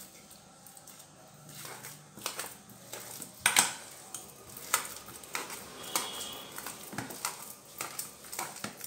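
Stainless-steel kitchen utensils clinking and knocking: about a dozen irregular taps of metal on metal, the loudest about three and a half seconds in.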